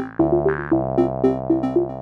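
Background electronic music: a synthesizer plays a quick repeating pattern of short notes over a held chord.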